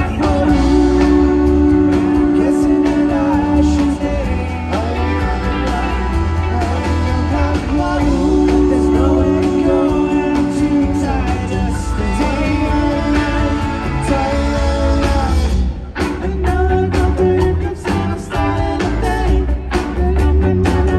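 Rock band playing live, with long held notes. The music cuts out for a moment about three-quarters of the way through, then returns with short stop-start hits.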